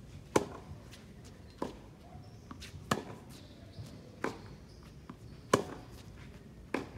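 Tennis ball struck back and forth with racquets in a groundstroke rally: six sharp pops about every 1.3 s, every other one louder.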